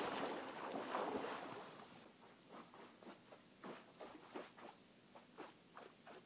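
Wind rushing over the microphone dies away about two seconds in, leaving faint scattered rustles and soft knocks.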